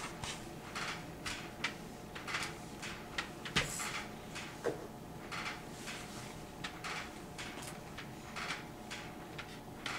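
Scattered soft clicks, taps and rustles of plastic Play-Doh tools and dough being handled on a tabletop tray, with one sharper knock about three and a half seconds in.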